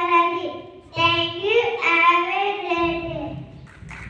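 A child's voice singing into a microphone in phrases of long held notes that bend up and down. It fades out after about three seconds, and a brief noise follows just before the end.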